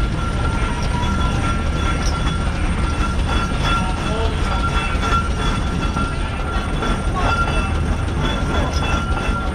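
1920 Garrett 4 NHP steam tractor in steam: a continuous mechanical rumble with a thin, steady high whine.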